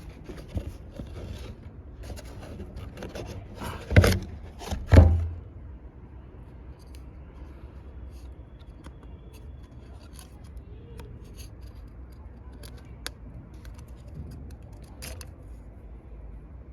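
Hand work on a car's oil filter housing: scattered clicks and scrapes of small parts being handled, with two loud knocks about four and five seconds in.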